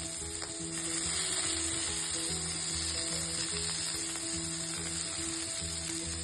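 Food sizzling as it fries in a hot pan, a steady hiss throughout, over soft background music.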